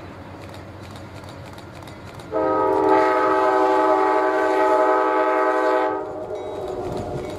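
Diesel locomotive's multi-note air horn sounding one long steady blast of nearly four seconds, starting a couple of seconds in, as the train approaches a grade crossing. A faint rumble of the oncoming train comes before and after it.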